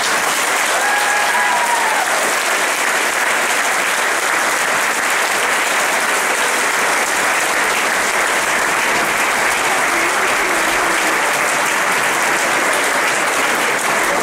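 Large audience applauding, steady clapping throughout.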